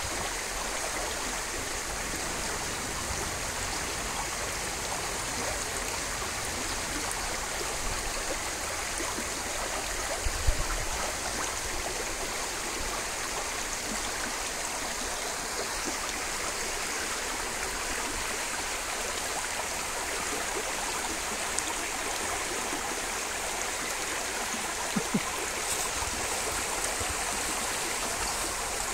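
Shallow creek water running steadily over stones, with a brief low thump about ten seconds in and a couple of small knocks near the end.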